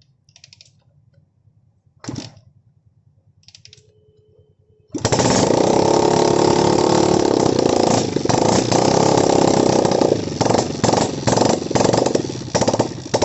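A single knock about two seconds in, then a motorcycle engine starting abruptly about five seconds in and running loudly at high revs. The revs drop and rise again several times near the end.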